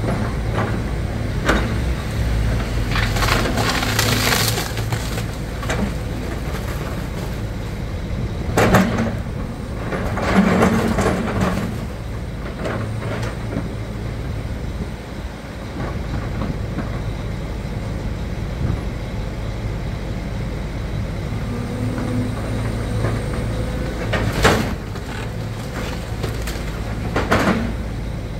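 Excavator demolishing a wood-framed house: timber and debris crack, splinter and crash under the bucket over the steady running of the excavator's engine. Several loud crashes come in separate bursts, with a long one near the middle and two more near the end.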